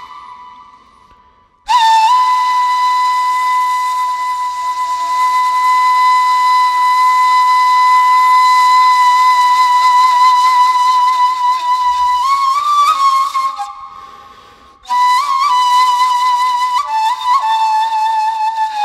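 Slow solo background music with a single melody line. After a short silent gap it holds one long wavering note for about ten seconds, then plays short ornamented turns, breaks off briefly, and continues with a phrase of quick bending notes.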